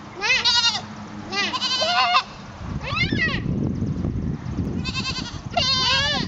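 A young goat kid bleating five times, high wavering maa calls in short bursts. A low rumble joins from about halfway through.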